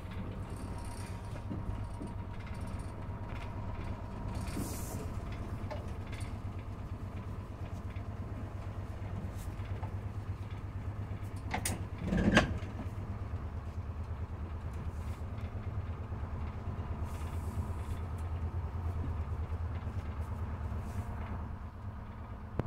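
Detroit Diesel 6-71 engine of a 1948 GMC Silversides bus running steadily as the bus creeps along, heard from the driver's cab. Scattered body rattles, and a brief louder rattle about twelve seconds in.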